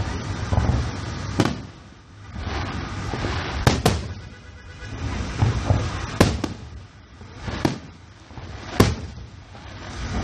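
Fireworks display: aerial shells bursting with sharp bangs, about seven in all, a second or two apart, over a low rumble of the show.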